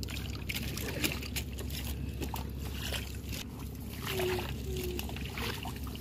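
Hands groping and splashing in shallow muddy water, with small irregular sloshes and drips as fish are felt for and pulled out, over a steady low rumble.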